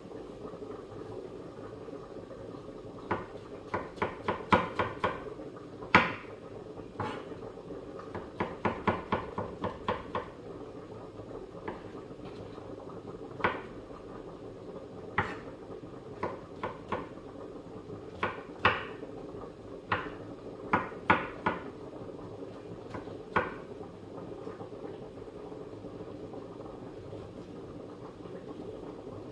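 Kitchen knife chopping mushrooms on a wooden cutting board. It gives two runs of quick knocks, a few seconds in and again around nine seconds, then single chops spaced a second or two apart, over a steady low hum.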